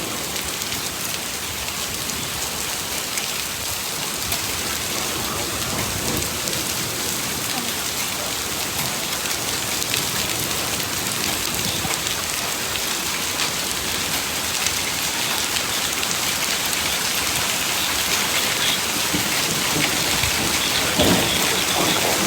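Heavy rain pouring down in a severe thunderstorm: a dense, steady patter of drops that grows slightly heavier over time.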